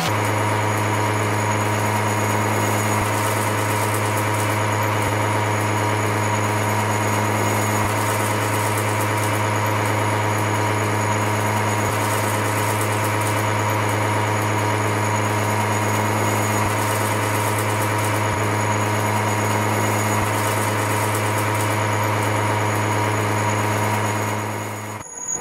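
CNC machining centre milling a steel block with a disc milling cutter: a steady machine hum with a few fixed tones that holds unchanged, then cuts off abruptly near the end.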